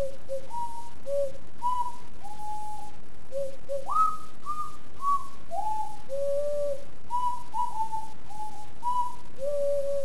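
Extended-range sweet potato ocarina from Songbird Ocarinas playing a melody of clear single notes, some short and some held, with a quick slide up to the highest note about four seconds in.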